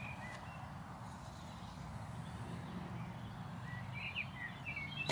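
Quiet open-field ambience: a low, steady rumble of wind with a few faint bird chirps, once at the start and again near the end.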